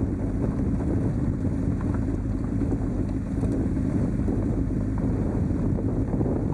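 Motorcycle engine running steadily at low revs while riding down a gravel track, with wind noise on the microphone.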